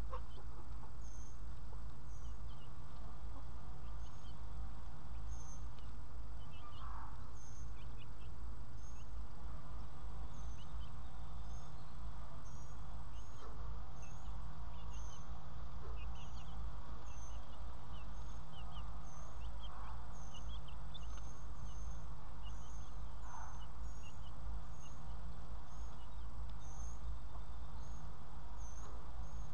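Silkie chicks calling now and then with short peeps and soft clucks while foraging, over a steady low rumble.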